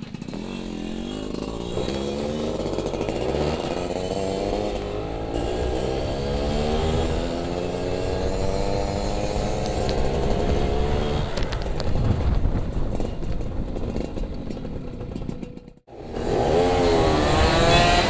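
Yamaha F1ZR's 110 cc two-stroke single-cylinder engine accelerating on the move, its pitch climbing slowly and steadily through a long pull. About two seconds before the end it cuts out briefly, then comes back revving up and down.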